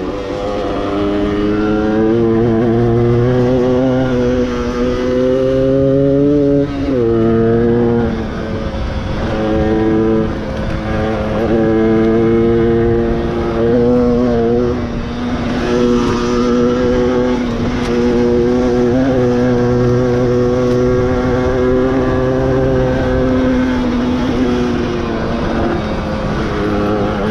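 A stock 1994 Yamaha DT125R's single-cylinder two-stroke engine pulling on the road. Its pitch climbs steadily for the first six seconds or so and drops sharply about seven seconds in. It then holds fairly steady, with a few brief dips as the throttle is eased and reopened.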